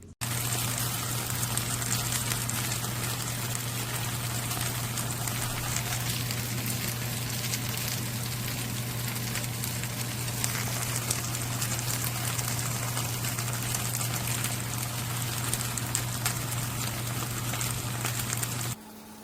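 Steady rushing noise like running or gushing water, with a low steady hum underneath. It starts abruptly and cuts off abruptly shortly before the end.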